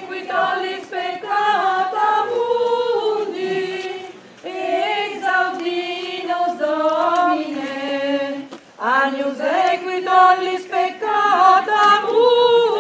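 Congregation singing a hymn together in phrases, with short breaths about four and nine seconds in.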